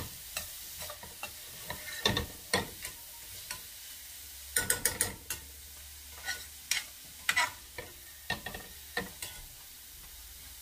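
Slotted metal turner scraping and clinking against a stainless steel frying pan as diced onions are stirred, in irregular clusters of sharp clinks, densest about two, five and seven seconds in. Under it, a faint sizzle of the onions frying in oil as they are sautéed to brown.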